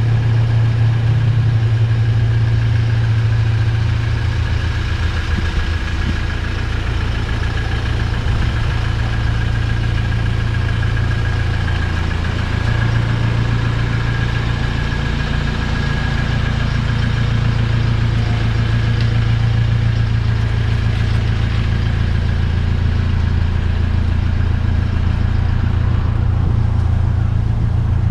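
A car engine idling steadily, a low hum with a few small shifts in level.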